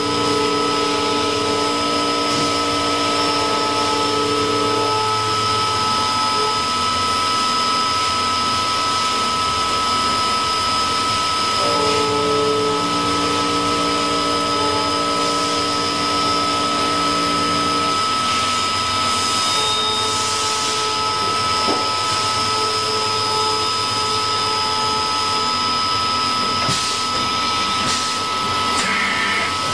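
CNC machine running in a machine shop: a steady hiss with a constant high whine, joined twice for several seconds by a lower hum of a few steady tones, once at the start and again in the middle.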